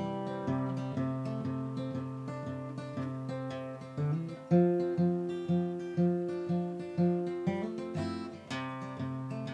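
Instrumental break of a song played on acoustic guitar: chords strummed steadily at about two strokes a second, with stronger accented strokes from about halfway through.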